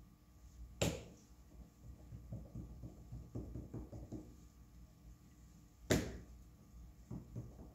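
Soft rubbing and handling noises of hand work on a clay model, broken by two sharp knocks, one about a second in and another about five seconds later.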